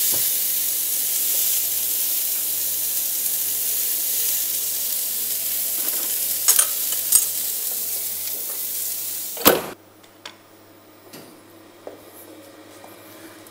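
Beef rib steak sizzling on a preheated grill in a hot oven, a steady high hiss with a couple of light clicks around six and seven seconds in. About nine and a half seconds in there is a thump and the sizzling cuts off abruptly, leaving only a faint low hum.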